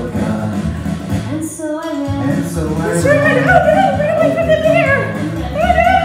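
Music: a children's echo song, voices singing over a backing track.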